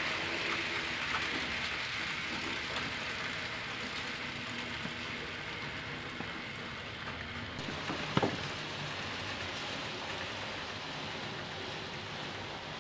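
HO-scale model train running on the track: a steady rushing rattle of wheels and motor that slowly fades as it passes, with one sharp click about eight seconds in.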